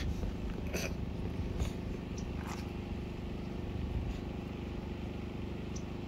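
A steady low mechanical hum, with a few faint ticks in the first few seconds.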